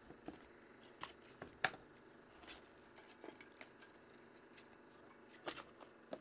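Hands opening a cardboard trading-card box and handling its contents, heard as faint, scattered clicks, snaps and scrapes of cardboard and wrappers, about ten small handling sounds across the stretch.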